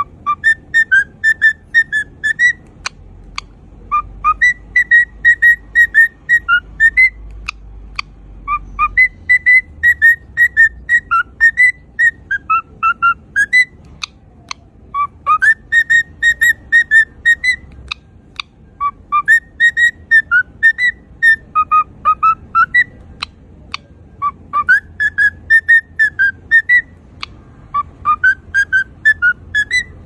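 Cockatiel singing a whistled song: quick runs of short, clear whistled notes, mostly on one pitch with some dipping lower, in phrases of two or three seconds separated by brief pauses, with a few sharp clicks between them.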